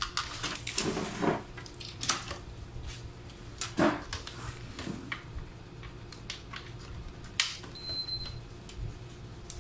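Handling noise from a large plastic-cased LED wall clock on a workbench: scattered clicks, knocks and scuffs, with a sharp click about seven seconds in and a brief high tone just after.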